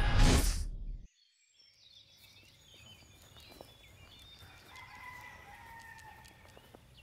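A swelling whoosh that cuts off about a second in, then faint farmyard background with a rooster crowing once, a long call a little over halfway through, and small birds chirping.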